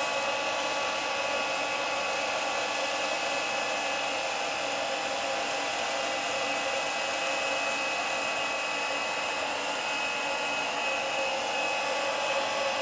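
Cordless vacuum cleaner running steadily on the floor: an even motor whine over a rushing hiss of air.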